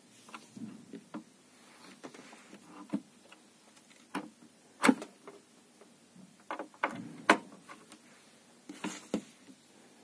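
Handling noise on a digital mixing desk: irregular clicks and knocks from a hand working the controls and reaching over the input sockets, the loudest about five and seven seconds in.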